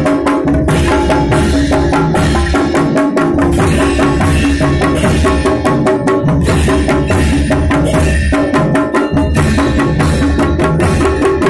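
Loud music with drums beating a steady, fast rhythm under held pitched tones.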